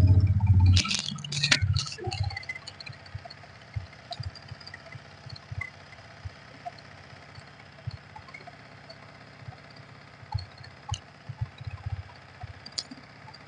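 Yamaha MT-15's 155 cc single-cylinder engine revved, then dropping back to a quiet idle with irregular low thuds and a few light clicks. It runs without the engine noise that a timing chain and valve tappet repair has cured.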